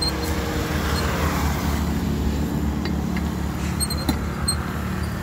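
Steady low rumble of road traffic, with a vehicle passing about a second in.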